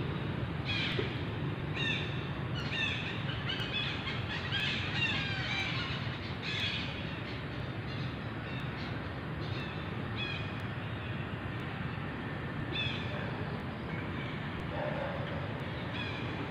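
Forest ambience: a steady low hum with short, high chirping calls repeated over and over, thickest in the first seven seconds, then only now and then.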